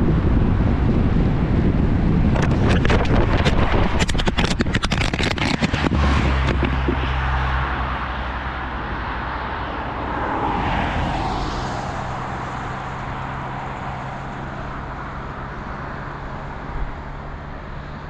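Car driving on a wet road, heard from inside: a loud low road-and-tyre rumble with a rapid crackle of clicks in the first few seconds, then a quieter, steadier engine hum. A brief swell of rushing noise rises and fades near the middle.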